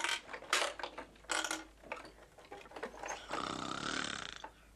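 A run of sharp knocks, then about three seconds in a hoarse shriek from Baba Yaga, lasting about a second.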